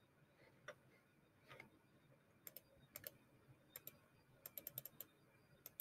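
Faint, scattered clicking at a computer: about a dozen sharp clicks, some in quick pairs and a quick run of about five near the end.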